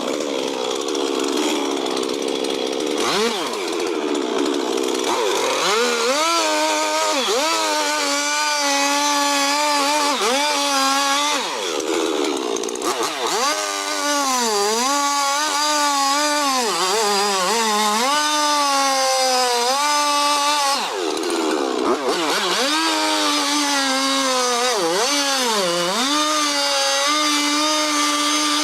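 Chainsaw running at high revs while cutting, its engine pitch sagging and recovering again and again as the chain loads up in the wood. For the first few seconds it is rougher and lower before it revs up, and the revs drop briefly twice.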